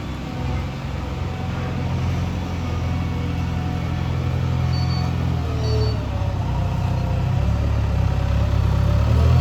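JCB 3DX backhoe loader's diesel engine running steadily, with a change in engine speed about six seconds in.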